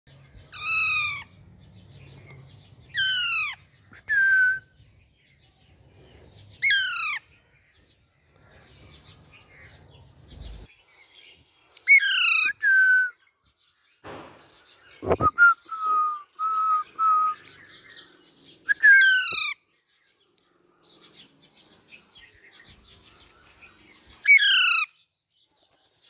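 Young Alexandrine parakeet giving loud harsh squawks, about six in all, each sweeping sharply down in pitch. Between the squawks come short, level whistled notes, including a quick run of four near the middle.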